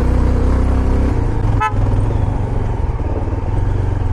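Motorcycle engine running steadily in first gear on a rough climb, its note changing about a second in. A short horn beep sounds about a second and a half in.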